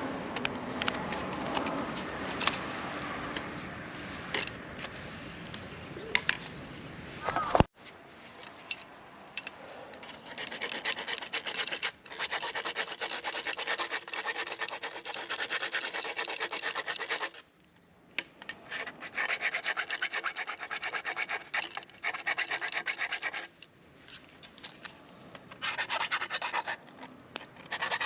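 Fast, even back-and-forth rubbing strokes of hand abrasive work, in bouts of several seconds separated by short pauses. The strokes follow a different, louder mixed sound that cuts off suddenly about eight seconds in.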